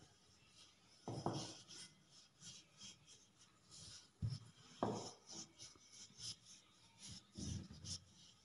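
Wooden rolling pin rolling out dough on a hard countertop: faint rubbing, scraping strokes, with a few soft knocks as the pin presses or touches down.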